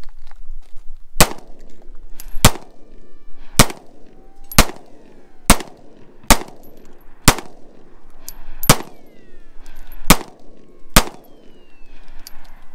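Semi-automatic pistol fired ten times in slow succession, about a shot a second, each a sharp crack followed by a short echo.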